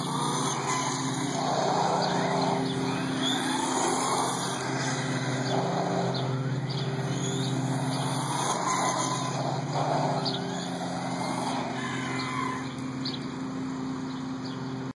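Redcat Sandstorm TK 1/10-scale RC truck driving, its brushless motor whining up and down in pitch with repeated bursts of throttle, along with tyre noise on concrete. A steady low hum lies underneath.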